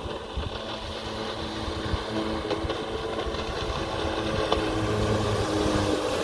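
Jet ski engine running steadily, its pitch shifting a little, over a low rumble.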